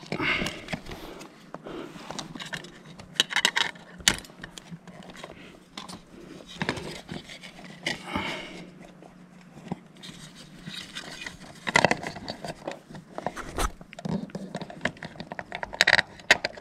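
Hands working stiff electrical wires through a plastic floodlight base plate: irregular scraping, rustling and small plastic clicks and knocks, over a faint steady hum.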